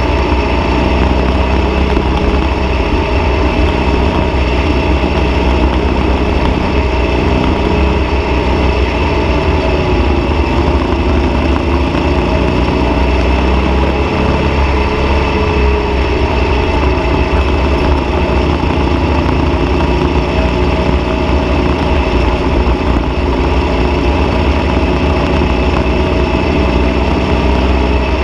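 Dune buggy engine running loud and steady as the buggy drives across the sand, with a deep low rumble underneath.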